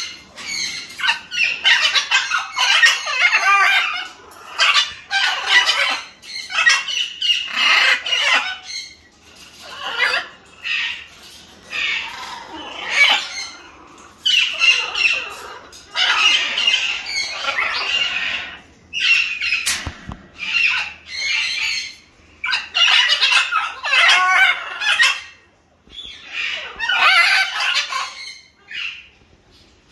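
Green-winged macaws squawking: loud, harsh calls in repeated bouts a second or two long with short pauses between, and one sharp click partway through.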